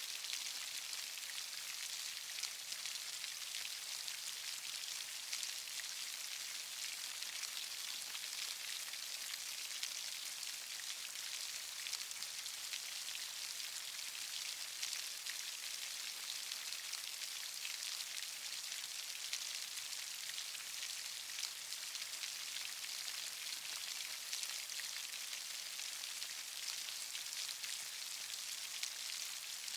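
Steady rainfall: a dense, even patter of raindrops hissing on surfaces.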